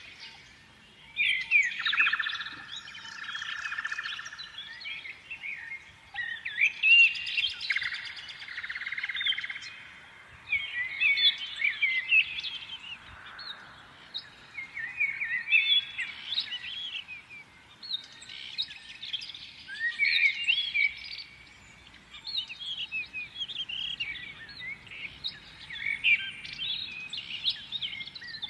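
Birds singing, quick high chirps and trills in bursts of a few seconds, with short pauses between the bursts.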